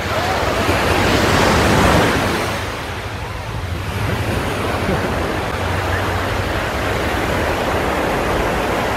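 Small ocean waves breaking and washing up a sandy beach. The wash swells to its loudest about two seconds in, then settles into a steady surge.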